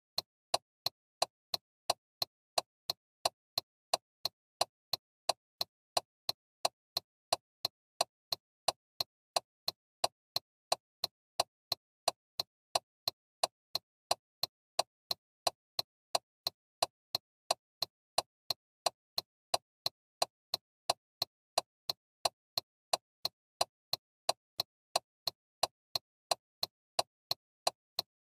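Car turn-signal flasher clicking in a steady, even rhythm, a little under two clicks a second.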